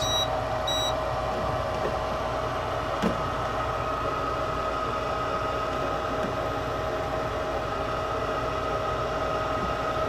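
Lennox 80% gas furnace's draft inducer motor running with a steady hum and whine before the burners light, while a handheld gas leak detector gives two short high beeps near the start.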